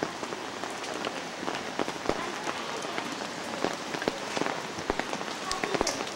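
Steady rain falling, with many sharp, separate drops hitting close by.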